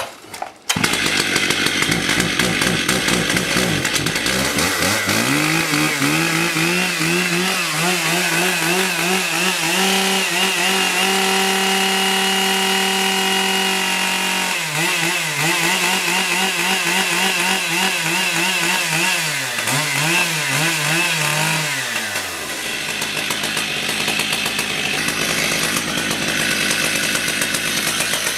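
Stihl MS 880 two-stroke chainsaw being revved. The engine climbs to a steady high pitch and holds it for several seconds, drops off, then is blipped up and down several times before settling lower. It revs up again near the end.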